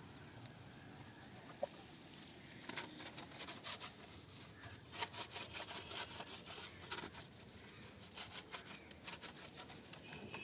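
Faint, irregular scraping and rubbing strokes of a pigeon tray being scraped clean of droppings and old feed, starting about two and a half seconds in.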